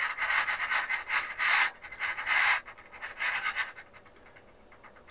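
Variac carbon brush scraping across its copper windings in irregular spurts as the input voltage is raised and the servo-driven regulator tracks it. The scraping stops after about three and a half seconds.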